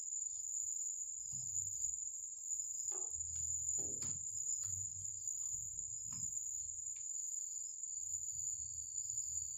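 Marker pen writing on a whiteboard, with faint short strokes and squeaks between about three and seven seconds in. Underneath runs a steady high-pitched trill, like crickets, and a low hum.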